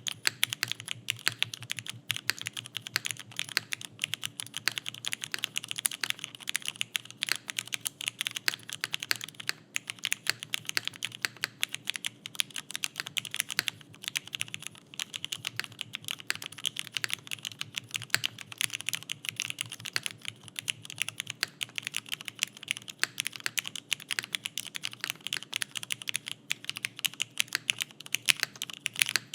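Steady, fast typing on an Owlab Vento 80 mechanical keyboard: broken-in, lubed Cherry MX Black linear switches on a leaf-spring-mounted aluminum plate with no foam, under GMK keycaps, giving a dense run of keystrokes, several a second.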